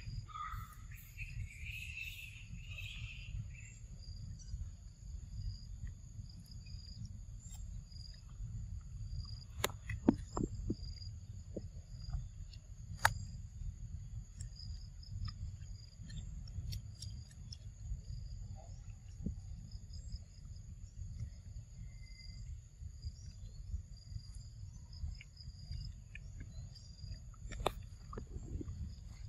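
Steady high-pitched insect trilling over a low rumble, with a brief rising call in the first few seconds and a few sharp clicks scattered through.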